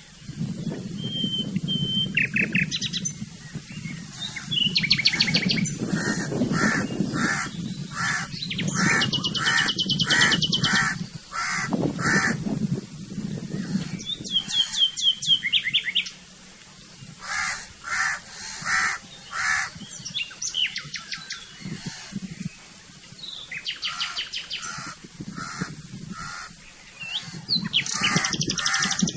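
Several birds calling over one another: runs of evenly repeated calls at about two a second, mixed with quick high trills and short chirps. A low steady rumble lies underneath for about the first half.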